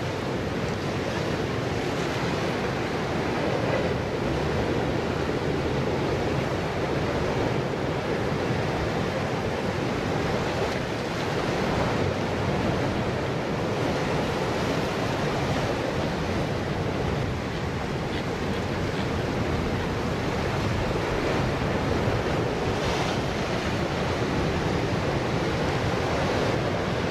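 Ocean surf breaking and washing over shoreline rocks, a steady rush of noise, with wind buffeting the microphone.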